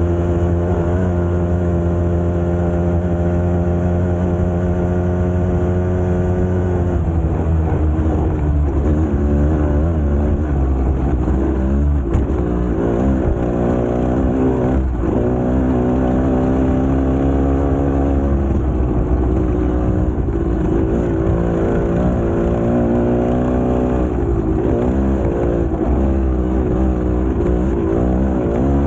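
GasGas two-stroke enduro motorcycle engine running, holding a steady speed for the first several seconds and then rising and falling in pitch as the throttle is worked.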